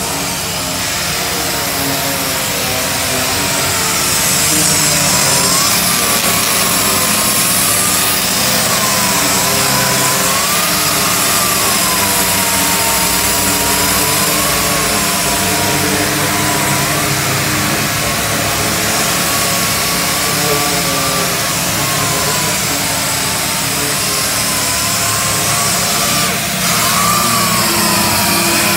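Air-powered double-action sander fitted with sandpaper, running on a truck's body panels to sand them before painting; its whine wavers up and down in pitch over a steady hum.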